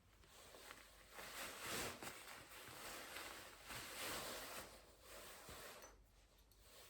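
Computer keyboard typing, soft and quiet, starting right after a silence and coming in a few bursts of rapid keystrokes that swell and fade.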